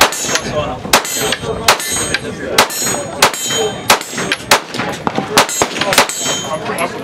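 Semi-automatic pistol in a CAA Roni carbine conversion kit fired in a steady string of single shots, roughly one every half second to a second.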